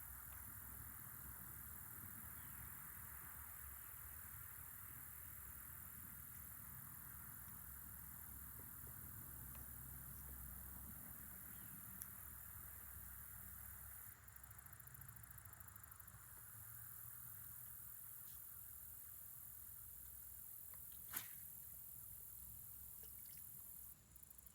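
Faint outdoor insect chorus, a steady high-pitched buzzing with a lower hum, over a low rumble, with one sharp click about three-quarters of the way through.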